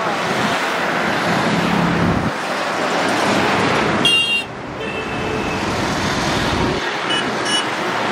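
Steady road traffic and vehicle engines, with a horn tooting briefly about four seconds in and short higher toots near the end.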